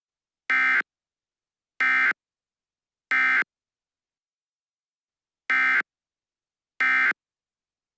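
Emergency Alert System end-of-message data bursts: short, identical bursts of screechy digital tones, about a third of a second each, three roughly a second apart, a pause, then a second set of three, the last starting right at the end. They signal that the alert message is over.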